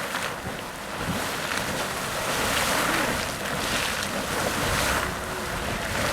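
Sawmill Geyser erupting: a steady rush of splashing water that swells and eases every second or two as the bursts overlap.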